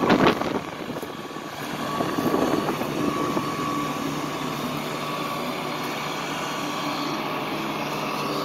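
Massey Ferguson WR9960 self-propelled swather running close by: a steady engine drone with a thin, constant high whine over it. A brief loud rush of noise comes in the first half second.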